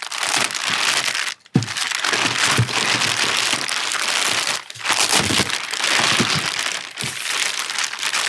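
Clear plastic wrapping film crinkling loudly as hands pull it back off a battery module, with short breaks about a second and a half in and near the middle.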